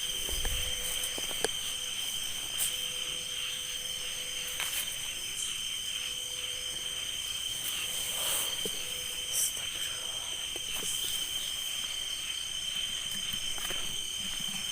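Night insect chorus: crickets and other insects trilling steadily in several high, even-pitched layers, with a few faint clicks scattered through it.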